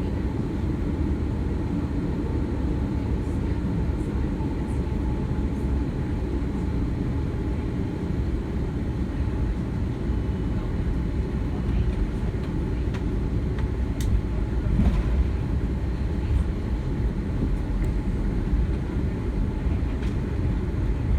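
Steady low cabin rumble inside an Airbus A330-200 jetliner on the ground before takeoff, with a few faint ticks.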